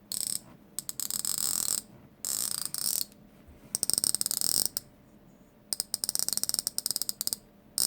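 Homemade fidget-toy noisemaker, made from a drink cap, a zip tie and an old clock gear, being spun: the zip tie's tip clicks rapidly over the gear's teeth with a ratchet-like clatter. It comes in about five short bursts with pauses between.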